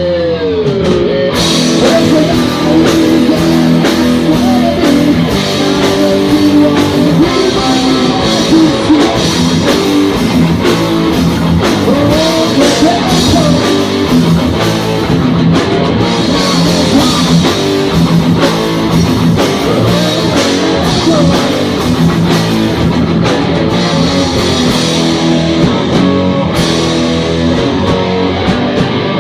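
Heavy metal band playing live: distorted electric guitars, bass and drum kit, loud and continuous, with some singing. A steep falling pitch slide right at the start.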